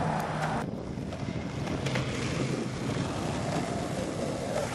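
Skateboard wheels rolling on rough asphalt, a steady rumble mixed with wind buffeting the microphone. The noise changes abruptly under a second in.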